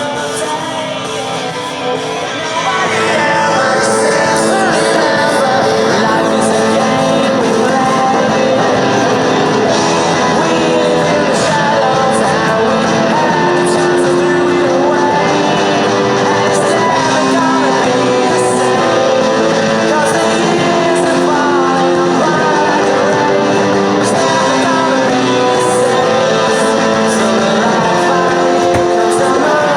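Live rock recording: a band with electric guitars and a sung vocal over the top, growing fuller and louder about two and a half seconds in.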